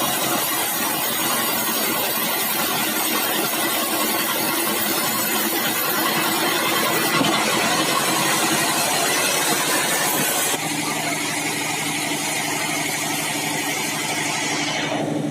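Sawmill band saw running loud and steady while ripping a log of bengkirai hardwood. About ten seconds in, the high hiss drops away suddenly and a steady humming drone remains.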